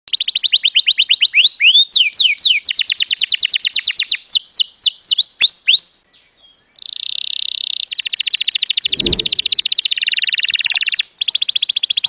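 Domestic canary singing: fast runs of repeated high chirps with a few swooping notes, a short break about six seconds in, then long rapid trills.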